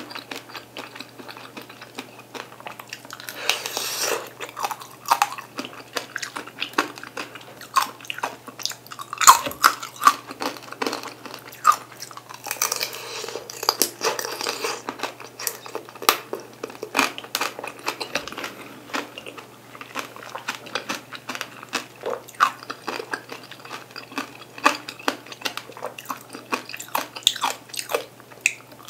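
Close-miked eating of peeled mandarin oranges: biting into the fruit and chewing, heard as many small wet clicks and smacks with a few longer noisy stretches.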